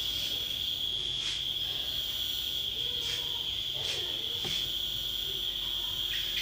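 A steady, unbroken high-pitched insect trill, of the cricket kind, with a few faint ticks over it.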